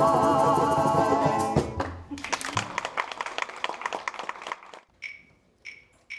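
Group of voices holding the song's final chord with a wavering vibrato, cut off about a second and a half in, followed by applause that dies away a few seconds later, leaving a few scattered short sounds.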